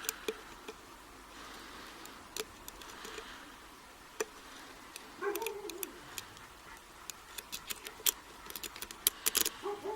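Light metallic clicks and taps of lock picks and a tension wrench working a euro-cylinder padlock. The clicks are sparse at first and come more often in the second half. A short faint whine sounds about five seconds in.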